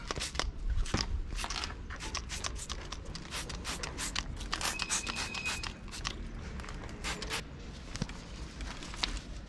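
Trigger spray bottle squirting foaming bike wash onto a bicycle frame: a quick run of short sprays in the first six seconds, then fewer and sparser.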